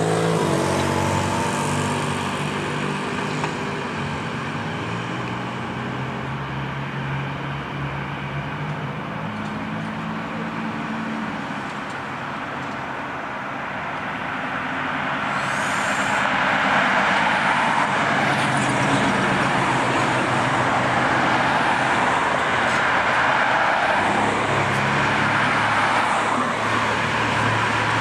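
A motor vehicle engine running, its pitch shifting up and down. From about halfway through, a louder, even rushing noise joins it, as of road traffic.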